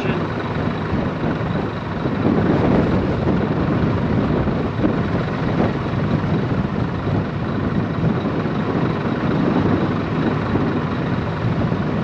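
Strong, gusty wind rushing and buffeting against the microphone in a steady, fluctuating rumble.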